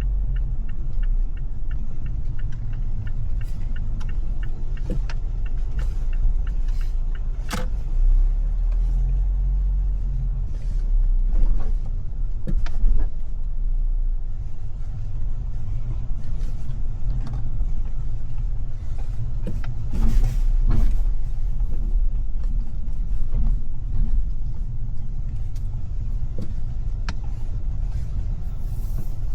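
Car driving in city traffic: a steady low rumble of engine and road noise, with scattered short knocks and clicks.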